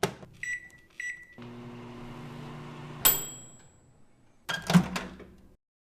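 Microwave oven cycle: the door clicks shut, two keypad beeps sound, the oven hums for about a second and a half, then a bell dings. A brief second sound follows about a second later.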